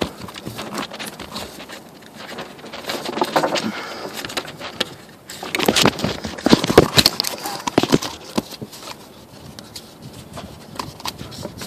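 Irregular rustling, scraping and light knocks of a hand and a handheld phone moving against the engine and its parts, with a cluster of sharper knocks a little past halfway.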